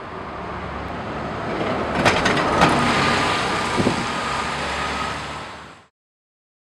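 City street traffic with a bus driving past close by, a few sharp clicks about two seconds in and a faint whine under it. The sound cuts off suddenly about six seconds in.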